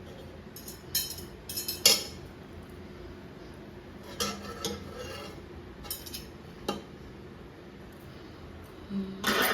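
Cutlery and dishes clinking: scattered sharp clinks, the loudest about two seconds in, a cluster around four to five seconds, and more near the end.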